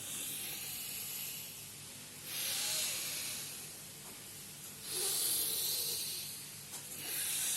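Deep breathing through one nostril at a time in an alternate-nostril pranayama like anulom vilom: air hissing through the nose in about four long breaths of roughly two seconds each, the middle two the loudest.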